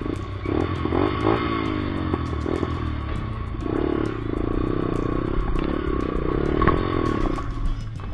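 Small 125 cc trail-bike engine revving up and down as the bike rides down a steep, rutted dirt slope, with rattling from the bike over the rough ground and a sharp knock near the end.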